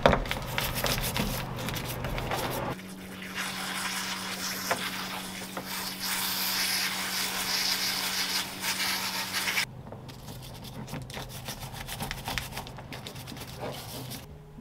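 A stiff dish brush scrubbing a crab's shell in quick rough strokes. About three seconds in, a hose spray nozzle jets water over the crab with a steady hiss and hum for several seconds, then the scrubbing resumes.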